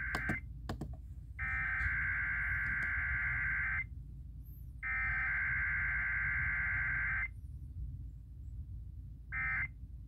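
Emergency Alert System Required Weekly Test data bursts (SAME header tones) playing through a clock radio's speaker: the end of one burst, then two long warbling digital bursts of about two and a half seconds each, a second apart, then a short end-of-message burst near the end. A low hum runs underneath, with a few clicks about half a second in.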